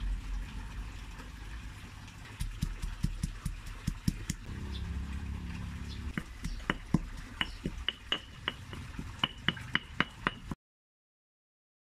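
Stone pestle pounding dried chilies, fresh chilies and garlic in a stone mortar to a paste. Lighter taps grow into a steady run of sharp knocks, each with a brief stony ring, about three a second. The sound cuts off about a second before the end.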